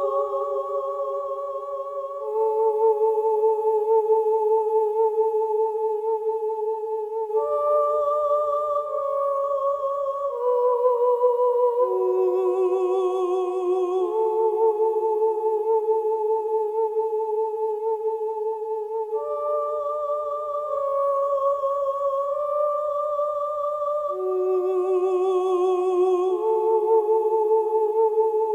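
Slow soundtrack music of several humming voices holding long notes with vibrato, the chord changing every few seconds.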